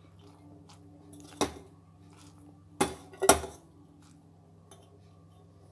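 A steel bowl knocking against the rim of an aluminium pressure cooker as chopped cabbage is tipped and scraped into it: one sharp clink about a second and a half in, then two more close together about a second later.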